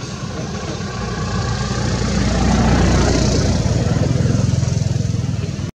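An engine running, growing louder over the first three seconds and then holding steady with an even low throb.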